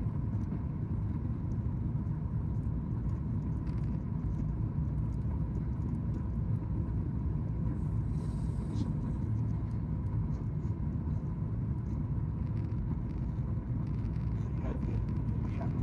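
Boeing 737 MAX 8 cabin noise during climb-out just after takeoff, heard inside the cabin over the wing: the CFM LEAP-1B engines and airflow making a steady low rumble, with a faint steady tone above it.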